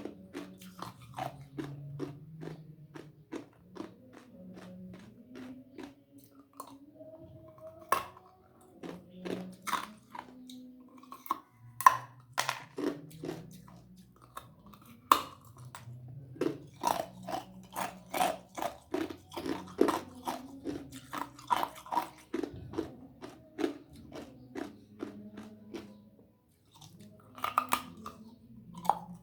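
Ice being bitten and chewed close to the microphone: a long run of crisp crunches several times a second, with a few louder bites.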